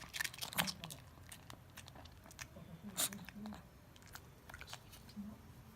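Chihuahuas crunching and chewing hard snack treats. The sharp crunches come thick in the first second, with one loud crunch about three seconds in, then sparser chewing.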